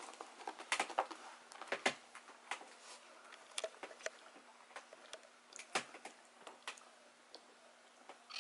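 Dachshund chewing a hard dental chew: irregular crunches and clicks of teeth on the chew, coming quickly in the first few seconds and more sparsely after. A faint steady hum sits underneath.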